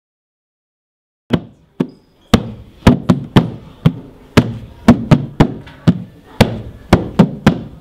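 A percussion beat of sharp knocking hits, two or three a second, starting after about a second of silence.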